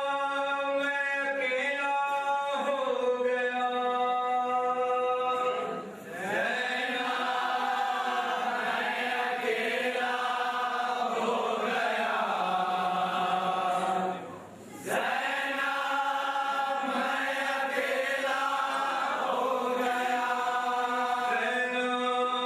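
Chanted Shia mourning lament (noha) for Hussain, sung in long held vocal phrases, with two brief pauses for breath about six and fourteen and a half seconds in.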